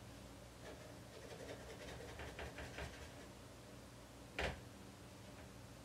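Quiet kitchen handling: faint light clatter in the first few seconds, then a single short sharp knock about four seconds in, over a steady low hum.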